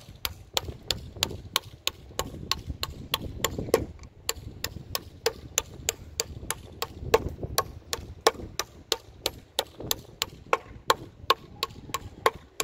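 Small steel hammer striking hazelnuts seated in holes of a wooden board, cracking their shells one after another: quick, even knocks, about three a second, with a low rumble in places.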